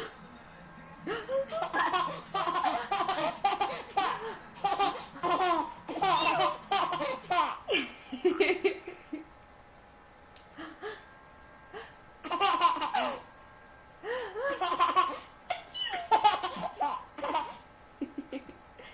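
Baby laughing in repeated bouts of giggles: a long stretch of laughter in the first half, then shorter bursts with pauses between.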